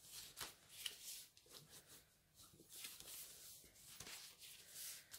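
Faint, short rustles and scrapes of designer paper being folded along its scored lines into a small envelope, the creases pressed down by fingers.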